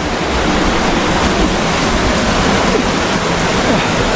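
Loud, steady rush of moving water, an even roar with no breaks.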